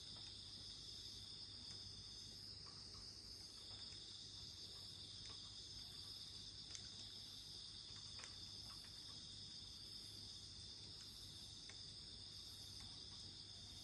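Faint, steady chirring of crickets at night, with occasional small crackles and pops from a wood campfire.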